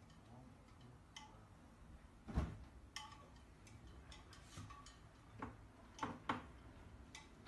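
Scattered faint clicks and knocks at irregular intervals, the loudest about two seconds in and two close together near the end.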